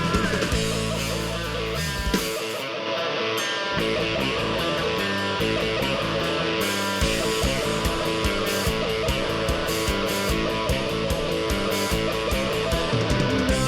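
Live rock band playing an instrumental break, guitar-led over bass and drums. About two seconds in, the bass and drums drop out briefly, then come back in about a second and a half later.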